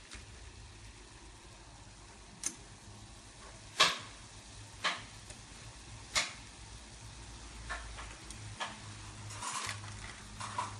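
Saucepan of boiling water with egg noodles cooking in it, a steady quiet bubbling hiss over a low hum, broken by about half a dozen sharp clicks, the loudest about four seconds in.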